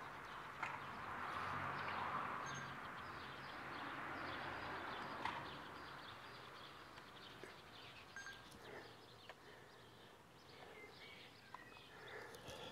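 Water swirling and sloshing in a plastic gold pan as concentrate is panned down to separate out the gold. The sloshing is strongest in the first few seconds and then eases off.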